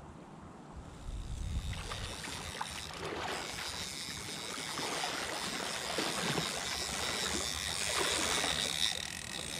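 Legs in chest waders pushing through shallow river water, a steady sloshing and splashing that starts about a second in and grows louder as the wader comes closer.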